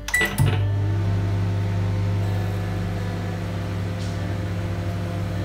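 LG All In One convection microwave oven starting with a brief beep and click, then running with a steady low hum.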